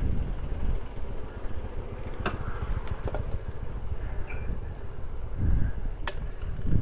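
Low rumble of wind and road noise on the microphone of a bicycle being ridden uphill, with a few sharp clicks about two to three seconds in and one more near the end.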